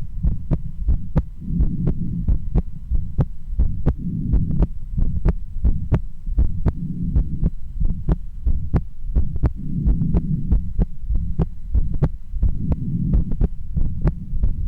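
A woman's heartbeat heard through a stethoscope, a quick, steady run of short thumps about three a second. Under it is a low rushing swell that comes and goes every two or three seconds.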